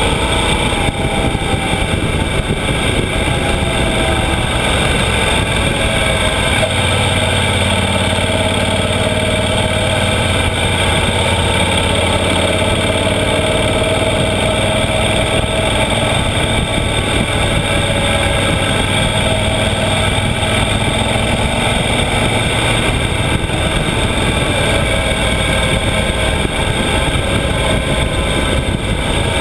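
Yamaha XT1200Z Super Ténéré's parallel-twin engine running steadily under way, its pitch rising and falling gently with the throttle, under steady wind noise.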